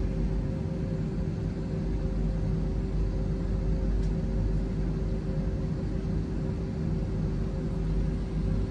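Steady hum and air rush of an airliner cabin during boarding, the ventilation and aircraft systems running, with two steady humming tones over a low rumble.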